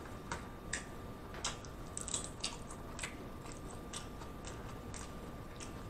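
Crunchy hard-shell taco crackling in faint, scattered crunches, about a dozen over several seconds, as the shell is chewed and handled close to the microphone.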